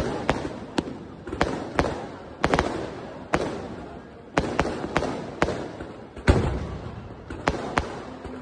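Aerial fireworks exploding overhead: a rapid, irregular string of sharp bangs, about one or two a second, each trailing off in an echo.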